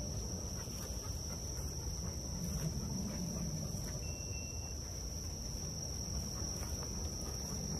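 A steady, high-pitched insect chorus drones on without a break, over a low rumble. A brief thin whistle sounds about four seconds in.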